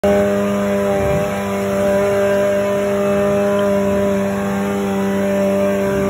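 Rock buggy's engine running at a steady, unchanging pitch as the buggy crawls up a rock ledge.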